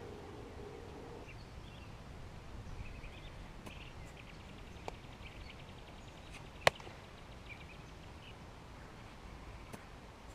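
Outdoor ambience with birds chirping, and one sharp crack of a softball impact about two-thirds of the way in, with a few fainter clicks before it.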